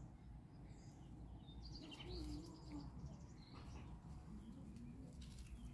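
Faint bird chirps and twitters, clustered about two seconds in and again near the end, over a low steady rumble.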